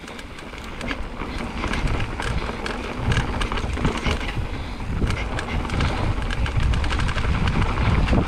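Mountain bike descending a dirt trail at speed: tyres running over the ground with many quick clicks and rattles from the bike over bumps, and a low rumble that grows louder about three seconds in.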